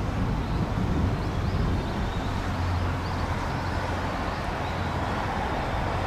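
Steady outdoor rumble of distant vehicle traffic with a low hum that swells slightly a few seconds in, and faint high chirps over it.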